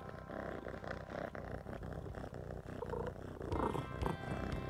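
Domestic cat purring close to the microphone, a steady fast rumbling pulse, while it takes treats from a hand.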